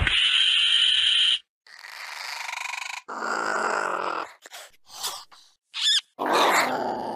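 Compsognathus creature sound effects: a string of small-dinosaur calls, short grunts and chirps one after another with brief silent gaps. It opens with a loud call of about a second and a half holding a steady high tone, has a cluster of quick chirps in the middle, and ends on another loud call.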